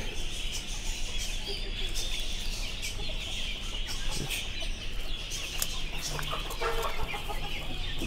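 A flock of young chickens clucking and cheeping as they feed.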